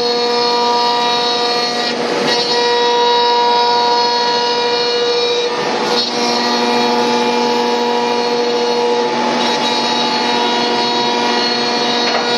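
CNC router spindle running at a steady pitch while milling MDF, with brief rushes of cutting noise about two and six seconds in.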